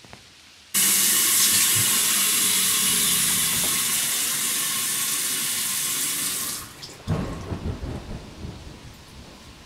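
Bathroom sink tap running at full flow, the water rushing loudly as it comes on suddenly just under a second in and tapering off about six and a half seconds in. Quieter, irregular low splashes follow.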